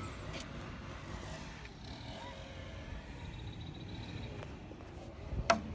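Outdoor background ambience: a steady low rumble with a few faint short calls above it, and one sharp click about five and a half seconds in.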